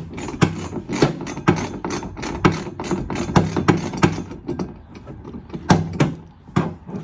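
Ratchet wrench clicking as the bolts of a rear spare-tire carrier are snugged up: a run of sharp clicks, two to four a second, that thins out after about four and a half seconds.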